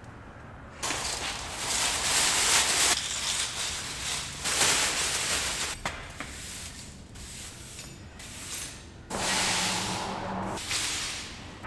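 Broom bristles sweeping across a bare concrete floor, pushing scraps of wire and insulation, in several strokes of one to two seconds each, starting about a second in.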